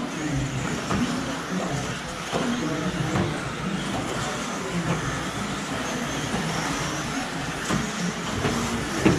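Several electric 1/10-scale RC buggies racing on a clay track, their motors whining up and down in pitch as they accelerate and brake, with occasional knocks.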